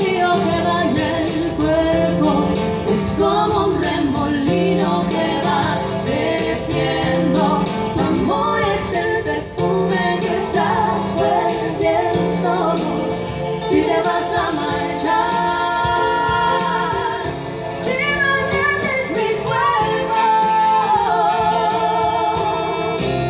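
Live band music: a wavering melody line over a steady bass line and evenly repeating percussion.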